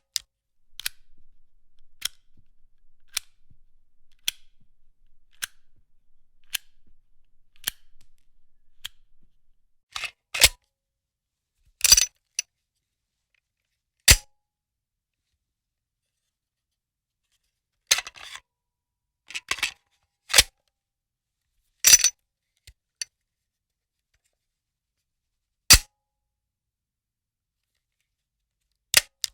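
Gun reloading sound effects, a series of sharp mechanical clicks and clacks. First comes a run of evenly spaced clicks, about one a second. Then come separate clacks, single or in quick pairs and triples, with silence between them.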